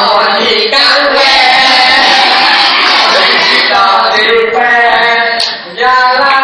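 A group of voices, women's and children's, singing a song together, loud and close.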